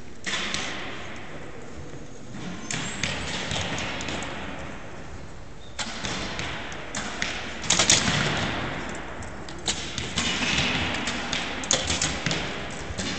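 Compound and recurve bows being shot by a line of archers: an irregular series of sharp thumps and snaps from bowstrings releasing and arrows striking the targets, each with a short echo, the loudest about two-thirds of the way through.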